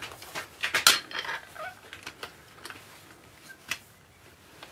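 Light metallic clicks and knocks of a turning gouge and its sharpening jig being handled and set, bunched about a second in, with scattered ticks after and one sharper tick near the end.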